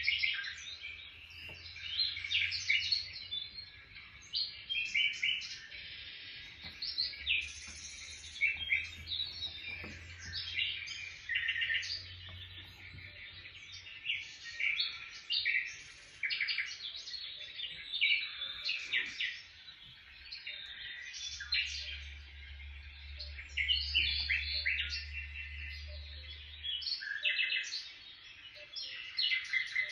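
Birds chirping and twittering, a dense run of short high notes that keeps going without a break.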